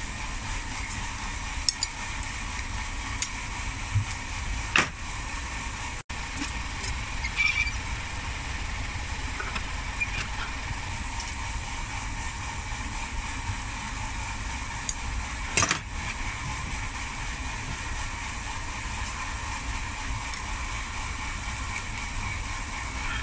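Steady roar of a glassblowing studio's furnace and glory-hole burners, with a few sharp clinks of metal hand tools against the glass.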